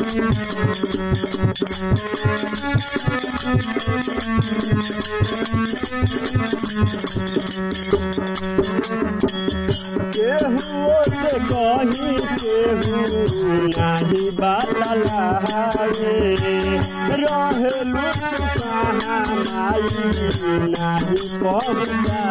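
Instrumental break in a Bhojpuri devotional folk song: fast, steady percussion over a sustained drone, with a wavering melody line coming in about ten seconds in.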